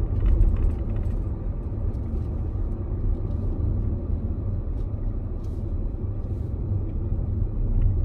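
Steady low rumble of a car's engine and tyres on the road while driving, heard from inside the cabin.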